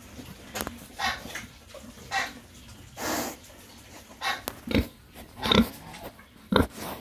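Domestic pigs grunting in short calls about once a second, the loudest and deepest ones in the second half.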